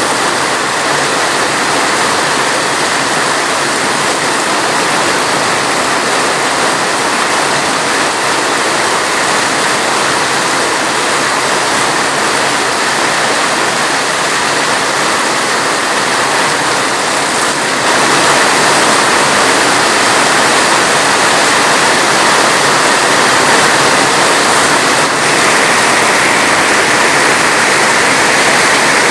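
Heavy, steady rain: a dense, even hiss of falling water that gets slightly louder about two-thirds of the way through.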